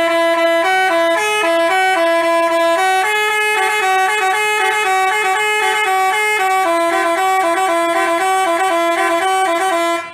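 Telolet basuri multi-tone bus horn playing a fast melody, its notes stepping up and down every fraction of a second in short repeated phrases, loud and unbroken until it stops right at the end.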